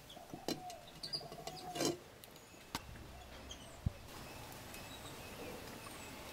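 Small sharp clicks and taps of a knife and clay dishes, strongest about two seconds in and just before four seconds, with faint bird chirps in the background over a low hiss.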